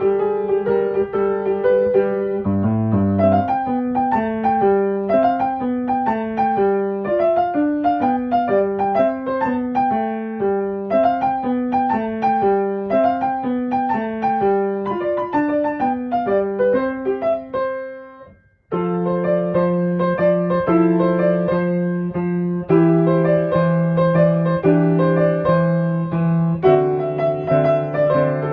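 Background piano music: flowing runs of notes, breaking off briefly about two-thirds of the way through before resuming with held chords.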